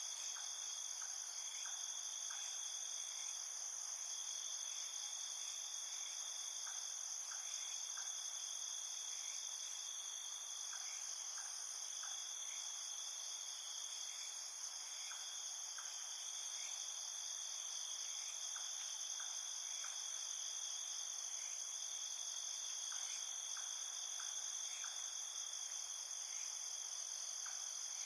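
Night chorus of crickets and other insects: several steady high-pitched trills layered together, with short lower chirps coming in small clusters every few seconds.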